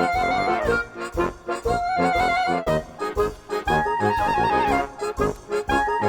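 Background music: a tune with a held-note melody over a steady beat.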